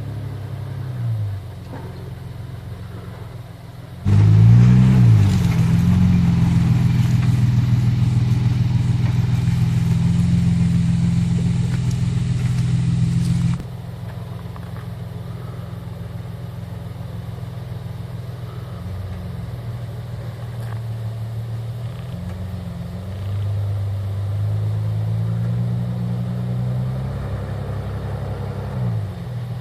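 Nissan Patrol's TB48 4.8-litre straight-six petrol engine working at low speed off-road, the revs rising and falling. About four seconds in it gets much louder with a hiss over it for about ten seconds, then drops back to a lower, varying engine note.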